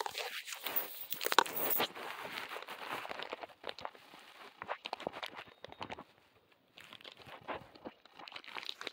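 Crinkling and tearing of cardboard and paper packaging: dense crackling for the first few seconds, then scattered clicks with a short lull around six seconds in.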